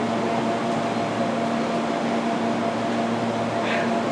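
Steady hum and whir of a standing Amtrak passenger train's air-conditioning and ventilation equipment, a constant drone with an even fan-like rush.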